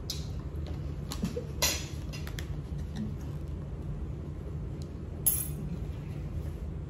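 Cutlery and dishes clinking during a meal: a handful of sharp clicks of forks and spoons against plates, the loudest about five seconds in, over a steady low hum.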